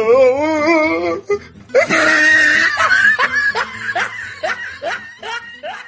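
Laughter with music: a wavering laugh at first, then a run of short ha-ha bursts about three a second.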